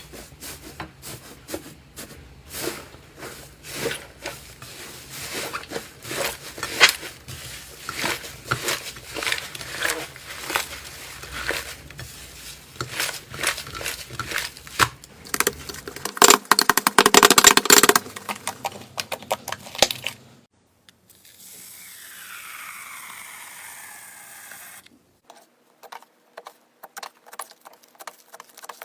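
Slime being squished and worked, giving quick crackling clicks and pops that grow dense and loud for a couple of seconds about sixteen seconds in. After a short break a softer, smoother stretching sound follows, then a few scattered clicks.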